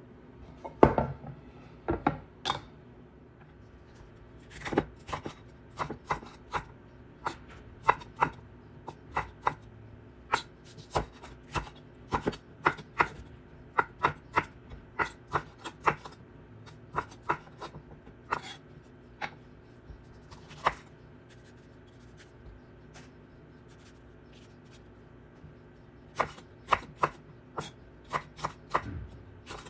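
Kitchen knife cutting bell pepper and tomato on a wooden cutting board: sharp, irregular taps of the blade hitting the board, about one or two a second. The taps stop for a few seconds and start again near the end.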